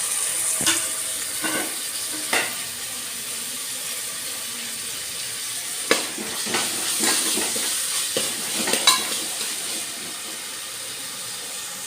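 Tomato, onions and ginger-garlic paste sizzling as they fry in hot oil in a pan, with a spoon scraping and knocking against the pan as it is stirred; the stirring is busiest in the second half.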